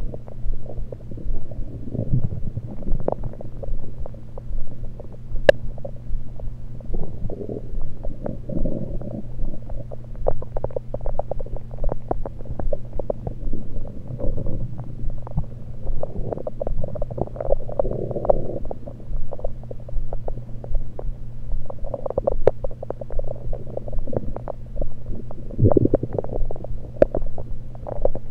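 Stomach gurgles and rumbles heard through an electronic stethoscope on the belly: irregular bubbling gurgles over a steady low hum, with a sharp click about five seconds in and another near the end. The gurgling comes from liquid and air moving in the gut rather than digestion, as the uploader takes it.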